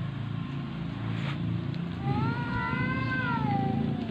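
An agitated cat gives one long drawn-out yowl starting about two seconds in, rising and then falling in pitch: the warning call of a cat squaring off in a fight. A low steady hum runs underneath.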